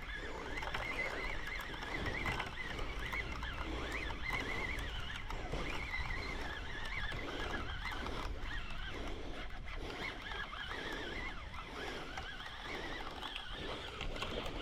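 Wind buffeting the microphone over a faint, wavering high whine and soft regular ticking, as a spinning reel is cranked to wind in a hooked fish.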